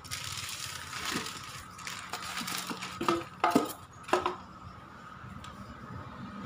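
Plastic bag crinkling as a metal rack-mount effects unit, an Alesis MicroVerb 4, is slid out of it, with a few sharp knocks a little after three seconds and again about four seconds in.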